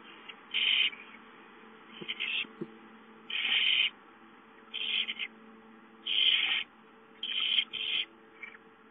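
Barn owl owlets giving rasping begging hisses, about seven in a row, each under a second long and roughly a second and a half apart, as they squabble over a gopher.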